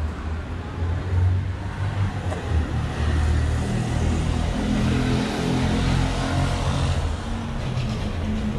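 A motor vehicle's engine running close by on the street, its low hum gaining a steady pitched note from about halfway through as it pulls away, over general traffic noise.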